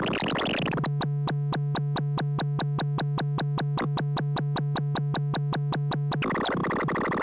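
3340-based dual analog VCO synthesizer module droning on one low pitched note, cut by even clicks about five times a second. About six seconds in it changes to a brighter, noisier buzzing tone.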